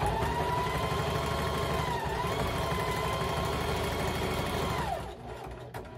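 Electric sewing machine running at steady speed, stitching a wide zigzag seam through folded fabric strips. It gives a steady motor whine that dips briefly in pitch about two seconds in, and the machine stops about five seconds in.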